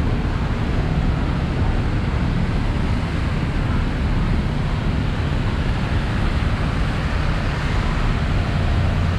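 Busy road traffic on a wet road: a steady rumble of engines with tyres hissing and splashing through standing water.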